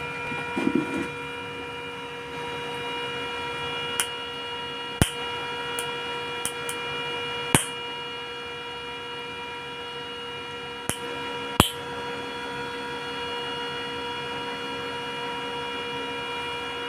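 ARC 200G IGBT inverter welding machine running with a steady hum of several fixed tones, and several sharp snaps between about four and twelve seconds in as its output lead is touched to strike test sparks, checking that the repaired machine gives output.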